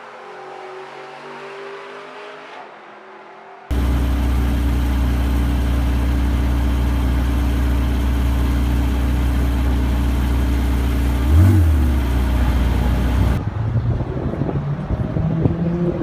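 Porsche 918 Spyder's V8 at speed. It starts as a quieter engine note with shifting pitch, then jumps abruptly a few seconds in to a loud, steady drone held at one pitch. A brief rising surge comes near the end, and then the sound turns rougher, with pitch changing.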